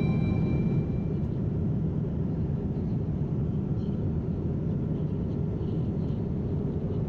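Steady low rumble of a moving vehicle, even and unchanging.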